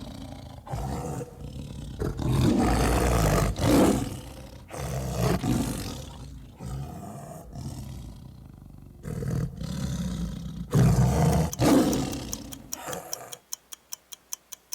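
Tiger roaring and growling, a series of loud separate roars one after another. Near the end the roars stop and a clock starts ticking, about three ticks a second.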